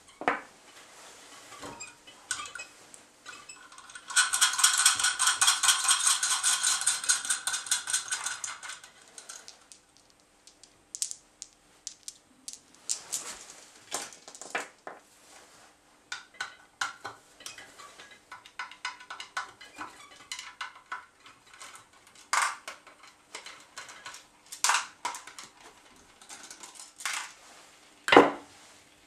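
Metal parts of a homemade Stirling engine clinking and knocking as they are handled and fitted together. A dense, rapid metallic rattle starts about four seconds in and lasts about five seconds, followed by scattered single clinks and taps.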